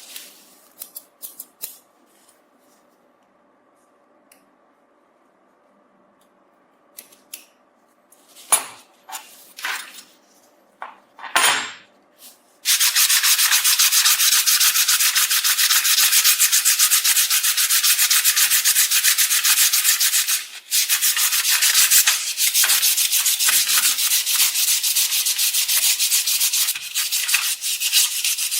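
Rusted steel being sanded with an abrasive in a continuous, fast, even rubbing hiss. It starts abruptly about halfway through, after several seconds of light clicks and taps from handling the metal parts.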